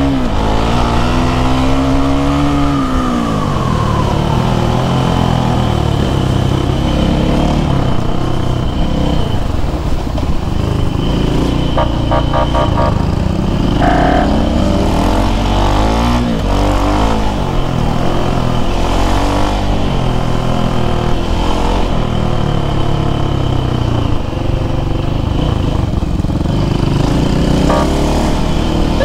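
Motorcycle engine heard from onboard while riding at speed, its revs climbing and dropping through the throttle and gear changes, pitch rising then falling in the first few seconds.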